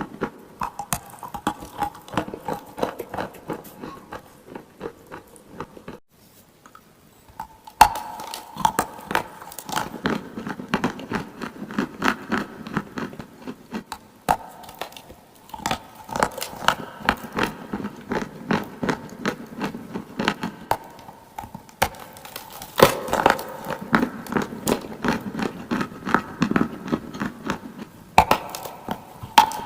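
Close-miked biting and chewing of clay, a dense run of sharp crunches and crackles, with a brief lull about six seconds in.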